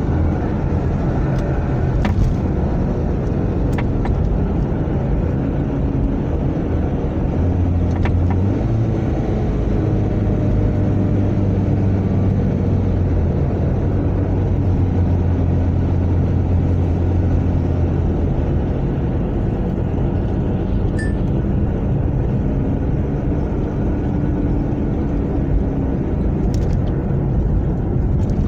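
Second-generation Toyota Prius on the move, a steady low rumble with a few sharp knocks from the front suspension at irregular moments. The owner traced the knocking to a worn strut mount, not the steering rack as first suspected.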